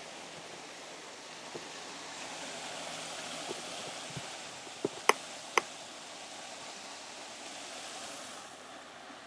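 Water running over a stone cascade into a pool, a steady rushing hiss that eases off near the end. Three sharp clicks come about five seconds in.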